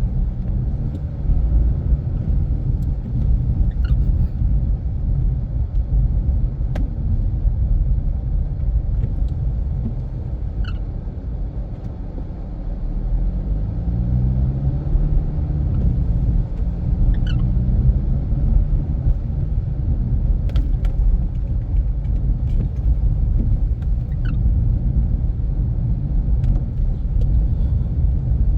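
Infiniti Q50 Red Sport 400's twin-turbo V6 and tyres on the road: a steady low rumble that eases around twelve seconds in, then the engine note rising as the car accelerates. Faint short squeaks come about every seven seconds.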